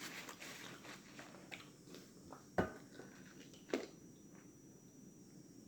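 Close-miked mouth sounds of eating barbecued turkey leg: soft chewing and lip smacking, with two sharper smacks about two and a half and three and a half seconds in.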